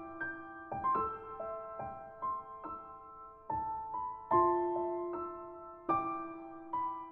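Background music: slow, gentle piano playing soft notes and chords that ring out and fade.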